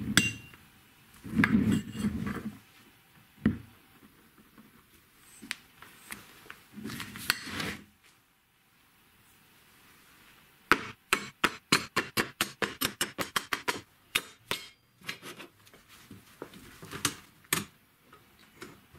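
Steel shock absorbers rolling and knocking on a plywood workbench. About halfway through comes a quick run of sharp metallic clinks and knocks as short pieces of square steel tubing are set down and handled on the bench.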